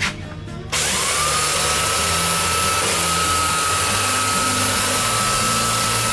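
An electric power tool switches on about a second in: its motor whine rises quickly and then runs steadily at full speed.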